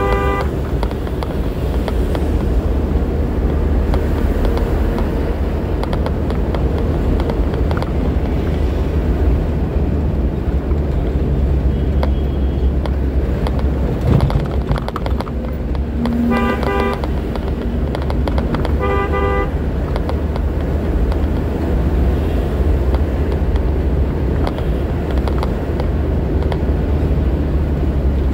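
Steady low engine and road rumble heard from inside a moving truck cab in traffic. A vehicle horn gives short toots: one right at the start, then two more about two and a half seconds apart past the middle.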